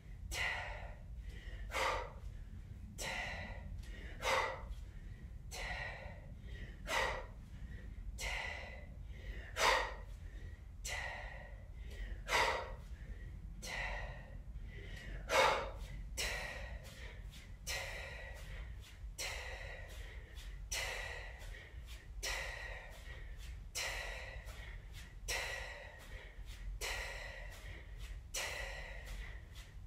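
A woman's hard breathing, one short breath with each kettlebell swing, in an even rhythm of a little over one a second that quickens slightly about halfway through.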